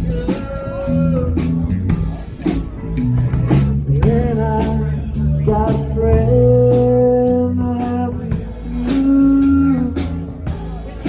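Live band playing a blues-rock song: guitar and drum kit, with a singer holding long notes.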